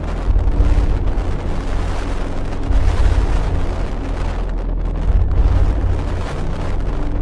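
Storm wind buffeting the microphone in a deep, continuous rumble, over the hiss of rough sea and breaking waves.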